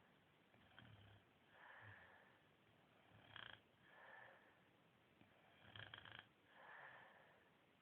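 Faint, slow snoring from a sleeper. There are three breath cycles, each a short rattling snore followed by a softer, breathy rush of air, repeating about every two and a half seconds.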